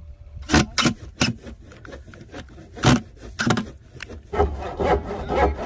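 A few short, sharp scrapes and knocks on plastic. About four seconds in, a saw starts cutting through a plastic drum in even sawing strokes, about three a second.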